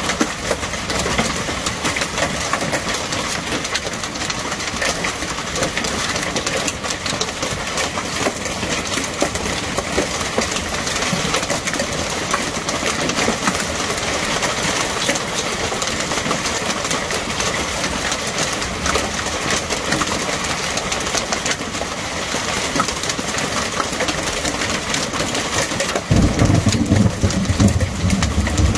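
Hailstorm: hail and heavy rain pelting down in a dense, steady patter of many small impacts. A low rumble comes in near the end.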